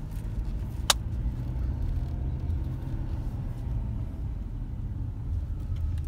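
Steady low rumble of a Honda car driving, heard from inside the cabin, with one sharp click about a second in.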